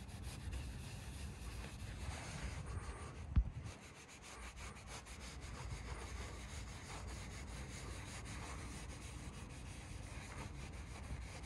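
Scratch-remover polish being rubbed by hand into a car's paintwork, a quiet steady rubbing made of many short strokes, with one sharp knock about three and a half seconds in.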